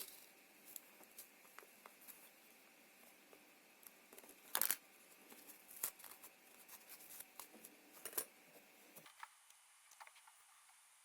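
Faint, scattered clicks and light rustling of small tools and parts being handled at a workbench, with one louder rustle about four and a half seconds in.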